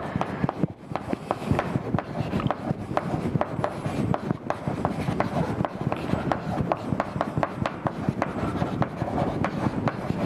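Chalk writing on a blackboard: a quick, uneven run of sharp taps with scratchy rubbing between them as the chalk strikes and drags across the board.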